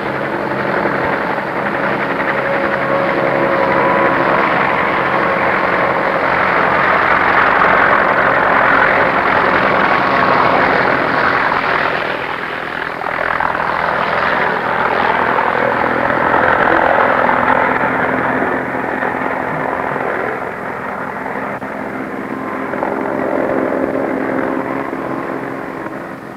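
Small bubble-canopy helicopter running loud as it lifts off and flies overhead, the engine and rotor noise steady, then fading near the end as it moves away.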